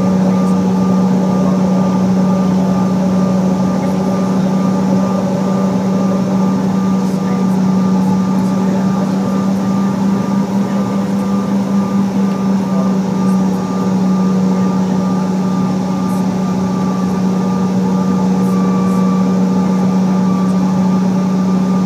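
Cabin noise of a CRJ700 regional jet taxiing, heard from a seat over the wing: the rear-mounted General Electric CF34 turbofans and the air conditioning make a steady drone, with a strong low hum and a fainter high whine.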